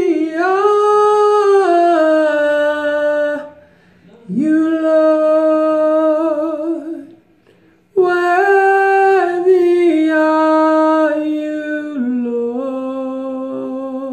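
A man's solo voice singing unaccompanied, improvised worship in three long phrases of held, gliding notes sung high, with short breaths between them.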